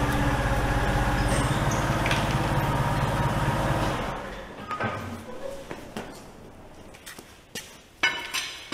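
Forklift engine running steadily, then dying away about four seconds in, followed by a few light knocks and clicks.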